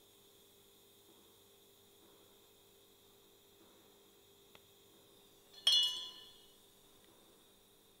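Faint steady hum of TIG welding on a chromoly steel motorcycle frame, then a sharp metallic clink about two-thirds of the way through that rings out and fades within a second.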